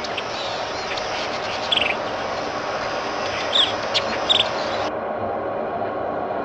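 Open-field ambience: a steady rushing noise with a few short, high bird chirps, one about two seconds in and two more a little past the middle. About five seconds in the rush turns suddenly duller.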